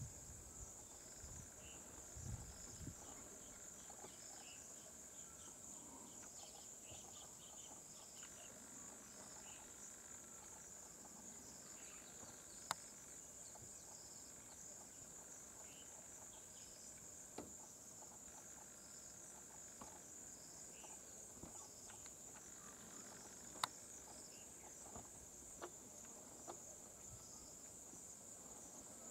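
Faint, steady high-pitched insect chorus, with a softer note repeating about once a second beneath it. Two sharp clicks cut through, one a little before halfway and one about four-fifths of the way in.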